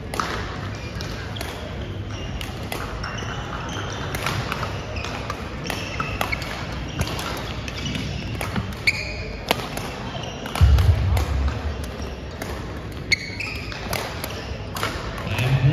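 Badminton rally in a large gym hall: sharp racket-on-shuttlecock hits from this and neighbouring courts, short sneaker squeaks on the hardwood floor, and a background of chatter. A heavy thump about two-thirds of the way through.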